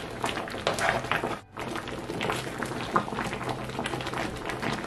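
Thick okra soup bubbling in a pot and a spatula stirring through it, a steady run of small wet pops, with music playing underneath. The sound drops out briefly about a second and a half in.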